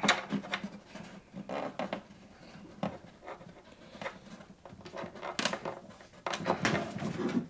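A hand working inside an acoustic guitar's body through the soundhole, pressing a pickup unit onto the underside of the top with double-sided tape. It makes scattered scrapes, rubs and light knocks against the wood, with a sharper knock about five and a half seconds in and a run of them near the end.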